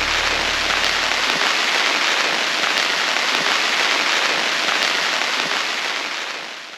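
Heavy rain, a dense steady hiss, fading out near the end.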